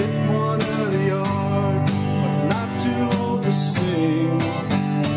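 Music with guitar and a steady beat.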